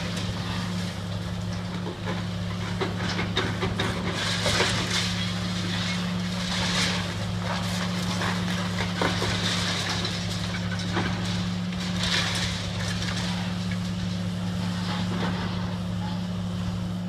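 Long-reach demolition excavator's diesel engine running steadily with a constant low hum, while irregular crunches and clatters of breaking masonry and falling debris come every few seconds as its jaw attachment tears into the brick building.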